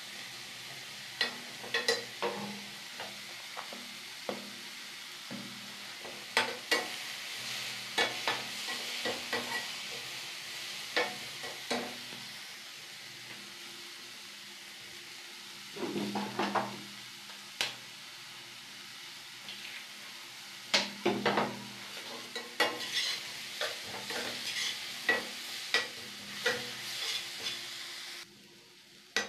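Chopped green capsicum frying in a metal kadai over a gas flame: a steady sizzle, broken by irregular clicks and scrapes as a slotted steel spatula stirs and knocks against the pan.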